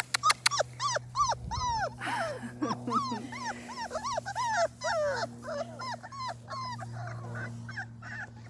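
Four-week-old Labrador retriever puppies whining and yipping: a run of short high cries, each rising then falling, two or three a second and sometimes overlapping. The owner reads the fussing as a sign that the puppies are overstimulated. A few sharp clicks sound right at the start.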